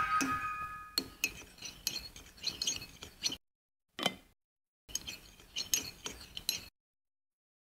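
Metal teaspoon stirring coffee in a small ceramic cup, clinking against the cup's sides in two spells of quick clinks. One separate clink comes about four seconds in, between the spells.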